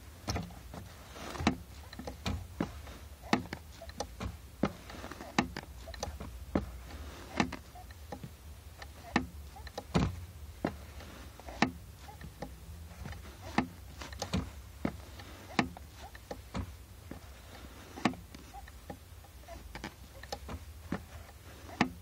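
Clutch pedal of a 5-speed manual Honda Accord clicking sharply each time it is pressed and released, about one or two clicks a second. The click is the fault the title blames on the clutch master cylinder.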